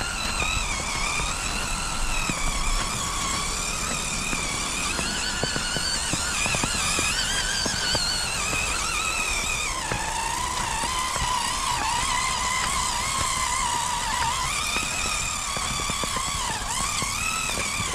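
RC4WD Bully 2 rock crawler's electric motor and geared drivetrain whining, the pitch rising and falling with the throttle and dropping lower about halfway through, with scattered light clicks from the wheels on the ground.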